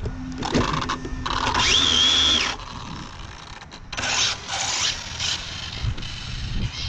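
Brushless electric motor of a fast RC car (TP Power 2900kv motor on a Castle XLX speed controller) whining under throttle in bursts. The first whine rises in pitch, holds and cuts off about two and a half seconds in; a few shorter pulses follow about four seconds in, over a low rumble.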